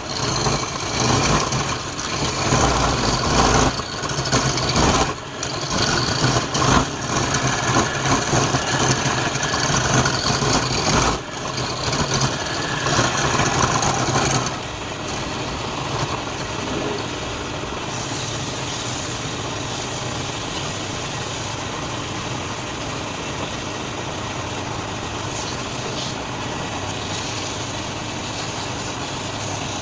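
Wood lathe running, with a turning tool cutting into the spinning wood in uneven passes for about the first half. About halfway through the cutting stops and only the lathe's steady running is left.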